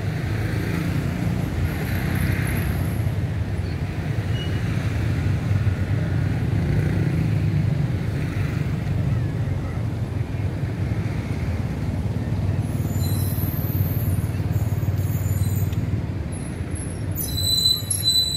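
Steady low rumble of background noise that barely changes, with a few thin, high-pitched tones coming and going near the end.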